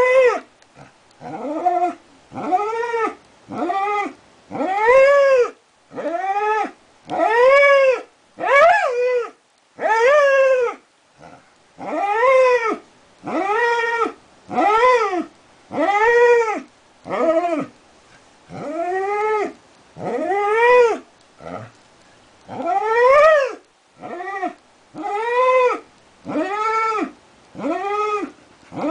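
Border collie howling in a long run of short cries, each rising then falling in pitch, about one a second, with a couple of brief pauses.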